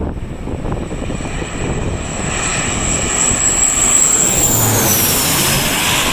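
Airliner passing low overhead on its landing approach: the engine noise swells to a peak, and a high thin whine drops in pitch as it goes by.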